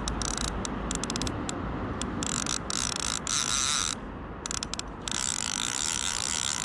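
Salmon fly reel's click-and-pawl drag ratcheting in short irregular bursts, then more continuously from about five seconds in, as line moves on the reel while a hooked salmon is being played.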